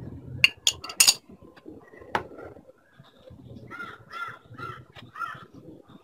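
Brake pads with metal backing plates clicking against each other in the hand: four sharp clicks about a second in, then one more about two seconds in. Then a bird calls four times in quick succession.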